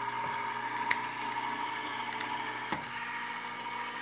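Sizzix Vagabond 2 electric die-cutting machine running, its motor humming steadily as it feeds the cutting plates and die through its rollers. A couple of small clicks come about one second and nearly three seconds in.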